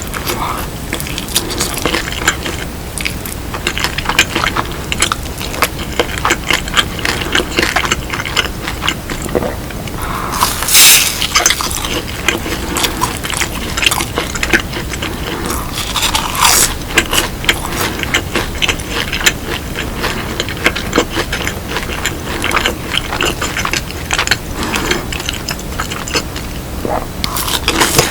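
Close-miked chewing and crunching of crispy fried chicken and cheese balls: dense, rapid crackling clicks, with a couple of louder crunchy bursts.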